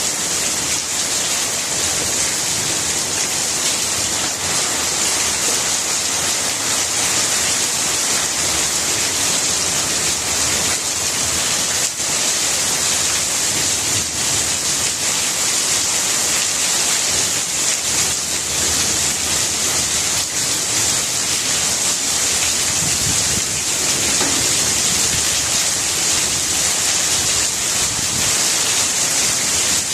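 Steady rain falling on plant leaves: an even, continuous hiss with a dense patter of drops.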